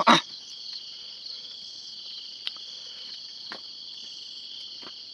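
Steady, high-pitched chorus of night insects such as crickets. A sharp knock sounds right at the start, and a few faint clicks follow.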